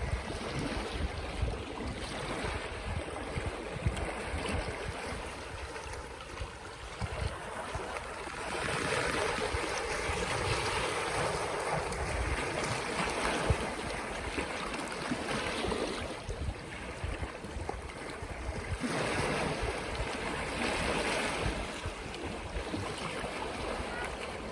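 Sea water of the Öresund strait washing against the shore: a steady wash that swells louder for a few seconds twice. A low rumble of wind on the microphone runs beneath it.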